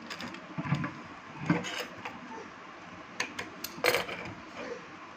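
Scattered sharp clicks and light knocks from hands working at a stopped industrial sewing machine, setting the fabric and metal parts around the presser foot, with a cluster of clicks about three to four seconds in.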